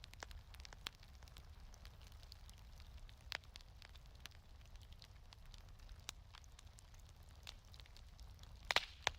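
Wood fire crackling in a fireplace: irregular sharp pops and snaps over a low steady rumble, with a quick cluster of louder pops near the end.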